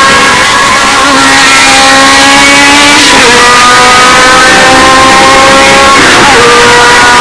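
Historic Formula 1 car's engine at full throttle, its pitch climbing through each gear and dropping at upshifts about one, three and six seconds in. The sound is heavily distorted, boosted to the limit.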